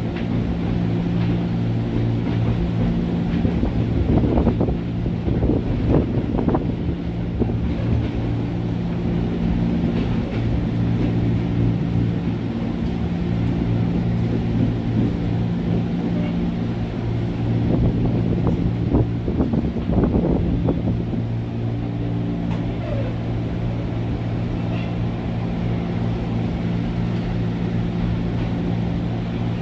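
Electric commuter train (KRL Commuter Line) running with a steady hum of several low tones over a rumble, swelling louder twice.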